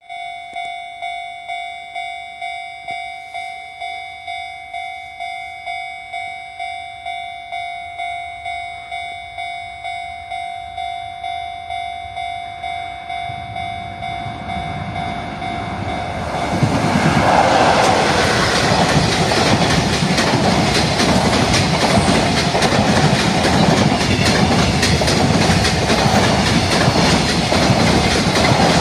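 Level-crossing warning bell ringing steadily, about one and a half strikes a second. From about 13 seconds in, a freight train hauled by an EF66 electric locomotive approaches. From about 17 seconds it passes close by, its wheels clattering loudly over the rail joints and drowning out the bell.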